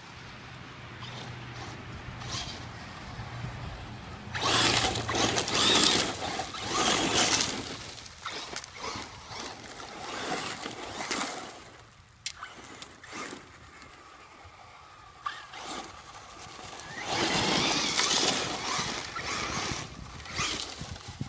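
Electric 1/8-scale RC truggy driven hard on gravel: three loud rushes of tyres spinning and spraying loose stones as it passes, with scattered clicks of gravel between them.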